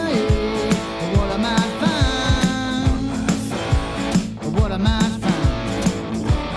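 Music: a rock-style song with guitar and a steady beat.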